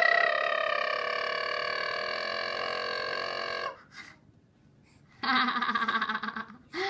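A baby's voice: one long, drawn-out vocal sound lasting about four seconds and sinking slightly in pitch. After a short pause comes a brief, pulsing burst of laughter.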